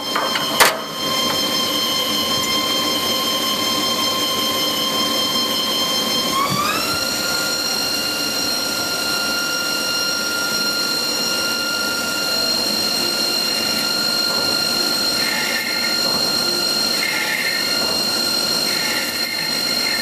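HAAS TL-3 CNC lathe spindle turning, its drive giving a steady high-pitched whine that glides up in pitch about six and a half seconds in as the spindle speeds up. A single sharp knock sounds just under a second in.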